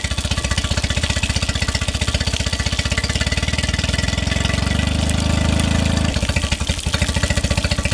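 Mercury 8 hp four-stroke outboard motor running steadily while it warms up after a cold start, with fast even firing pulses. Its note grows fuller for a few seconds in the middle, then drops back suddenly about six seconds in.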